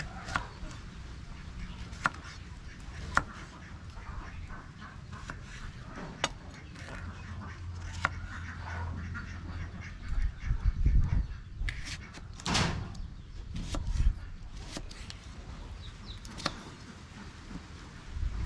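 Large kitchen knife cutting a green gourd on a wooden chopping block: irregular sharp knocks of the blade meeting the board, a second or several apart, with a louder busier stretch of handling about two-thirds of the way through.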